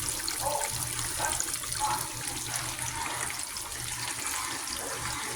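Pork steaks frying in hot oil in a pan: a steady sizzle with small scattered pops.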